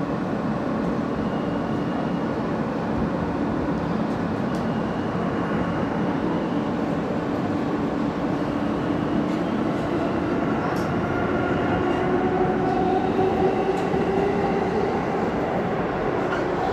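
R160 subway car running at speed between stations: a steady rumble of wheels on rail. In the second half a whine rises gently in pitch as the train gathers speed.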